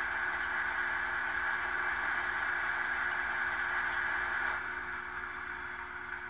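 Sound decoder in an N-scale Union Pacific GTEL gas-turbine model playing the turbine's shut-down sound through its tiny onboard speaker. A steady turbine noise loses its higher part suddenly about four and a half seconds in, then fades away as the turbine winds down.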